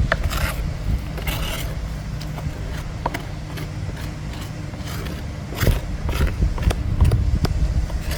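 Workshop handling noises: short scraping strokes and sharp light clicks and knocks over a steady low hum, busier in the second half.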